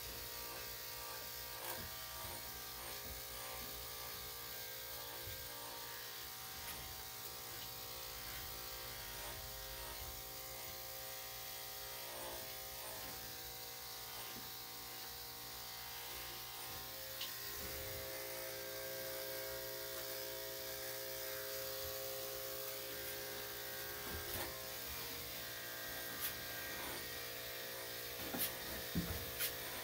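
Electric dog grooming clippers running steadily while shaving a dog's coat. The tone shifts slightly a little over halfway through, and a few light clicks come near the end.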